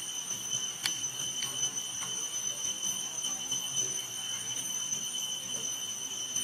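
Steady, high-pitched drone of insects holding one unchanging pitch, with a single sharp click about a second in.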